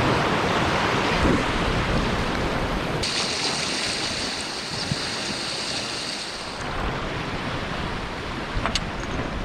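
Sea waves washing on a rocky shore, with wind noise on the microphone. About three seconds in, a steady high hiss starts and runs for a few seconds before stopping abruptly; a single sharp click comes near the end.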